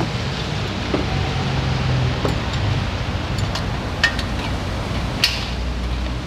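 A few short, light metallic clinks of tools and brake parts being handled, spread over several seconds, above a steady low hum.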